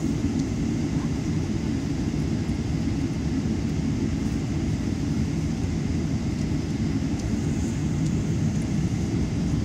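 Cabin noise in a Boeing 777-300ER taxiing: a steady low rumble of the GE90 engines at taxi power, heard through the fuselage.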